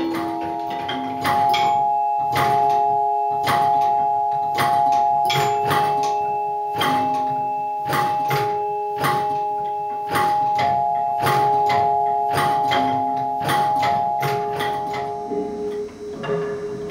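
Struck metal bars of a metallophone-type sound object ringing out: a few long, overlapping tones, a new note struck about once a second and slowly dying away, with sharp clicks between the notes.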